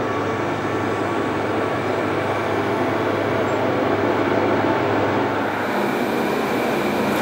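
Steady drone of heavy cargo-handling machinery during container loading, with several held tones over a noisy rumble. About six seconds in, the low rumble drops away and a higher hiss takes over.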